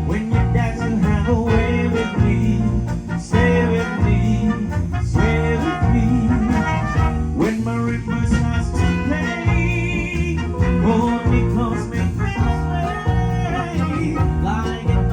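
Live band music with a steady beat, the band running through a swing-style tune.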